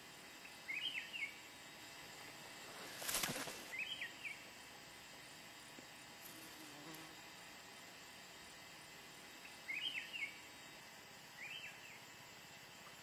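Steady insect chirring outdoors, with four short bursts of high chirping calls and a brief whoosh about three seconds in.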